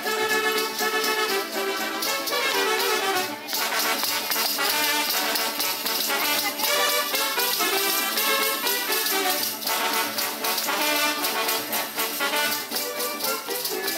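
Brass band playing a lively dance tune, with the jingling of rows of small bells on the dancers' boots.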